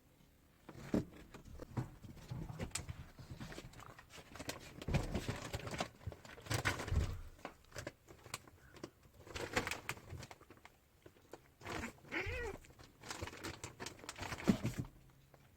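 Domestic cats fighting: irregular bursts of scuffling and noisy spats, with a short wavering cat cry about twelve seconds in.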